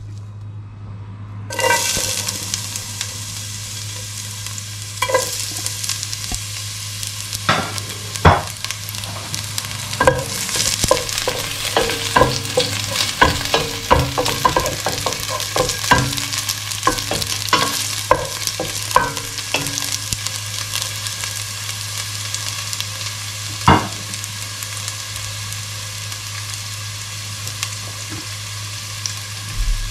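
Chopped garlic sizzling in hot oil in a stainless steel pot; the sizzle starts suddenly about a second and a half in as the garlic hits the oil. A wooden spoon stirs it, knocking against the pot many times through the middle, with one more knock near the end, over a steady low hum.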